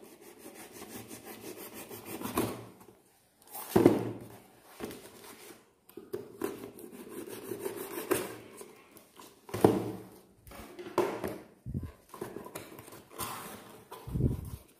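A blade slicing through packing tape and cardboard on a shipping box: stretches of scraping with several sharper, louder strokes. The cardboard is handled with a low thud near the end as the box is opened.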